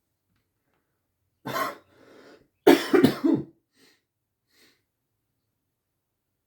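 A man sneezing: a sharp gasp about a second and a half in, a short breath, then a loud voiced sneeze that breaks into three quick pulses, followed by two faint sniffs.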